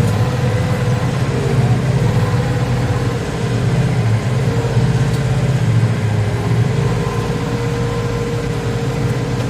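Tractor diesel engine running steadily under load while pulling a plough through the soil.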